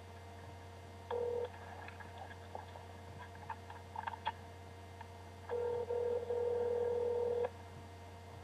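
Telephone ringback tone heard down the line while a call waits to be answered: a short ring about a second in, then one full ring of about two seconds, with faint line clicks between and a steady low hum.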